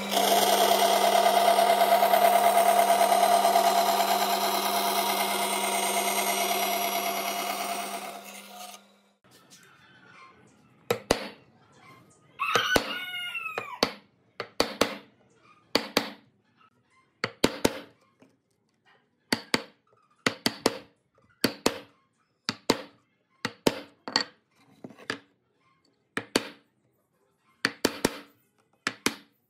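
Bandsaw running and cutting through a board, a steady loud hum that winds down and stops after about eight seconds. Then a wooden mallet strikes a chisel driven into the board, a series of sharp knocks about one a second.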